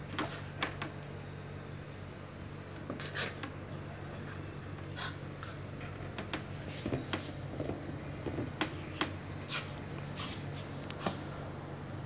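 A small dog playing with a red toy: scattered sharp clicks and taps, with a few soft thuds near the middle, over a steady low hum.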